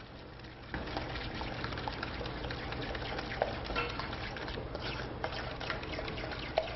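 Egg yolks and sugar being whisked by hand in a stainless steel bowl: a quick, steady clicking and scraping of the utensil against the metal, which picks up about a second in.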